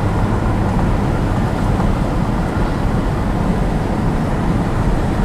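Car driving along: steady engine and road noise heard from inside the cabin.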